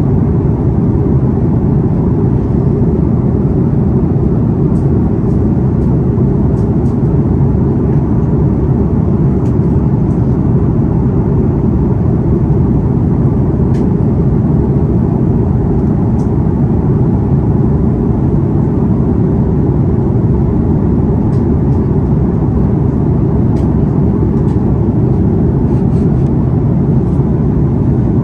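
Steady low roar inside the cabin of an Airbus A330 in flight: jet engine and airflow noise, even and unchanging throughout.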